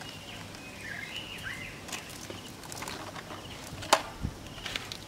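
Quiet outdoor ambience with a few faint high chirps in the first second and a half, then scattered light clicks and taps. One sharper click comes about four seconds in.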